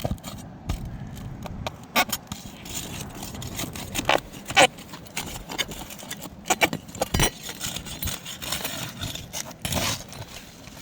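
Flat pry bar scraping and clicking against asphalt roof shingles as they are pried loose, in irregular scrapes and sharp metallic knocks.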